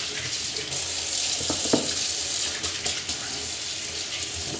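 Kitchen tap running into a stainless-steel sink while hands are washed under the stream, with a light knock a little under two seconds in.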